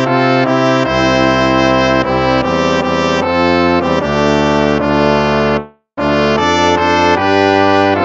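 Instrumental hymn music in slow held chords with a brass-like tone. It breaks off for a moment about three quarters of the way through, then starts again.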